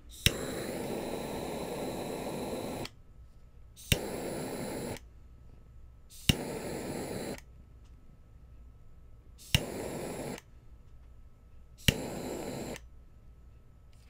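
Butane torch lighter clicked on five times, each sharp igniter click followed by the steady hiss of its jet flame. The first flame burns about two and a half seconds, the other four about a second each, heating a solder-seal wire connector to melt its solder ring.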